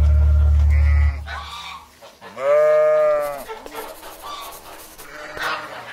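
A low, held music note stops about a second in. Then, about two and a half seconds in, a farm animal gives a single drawn-out bleat that rises and falls in pitch.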